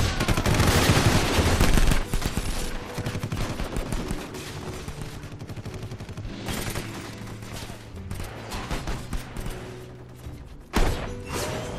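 Film shootout gunfire from pistols and automatic weapons: a dense volley of rapid shots, loudest in the first two seconds, then carrying on as scattered quick shots, with a sudden loud hit near the end.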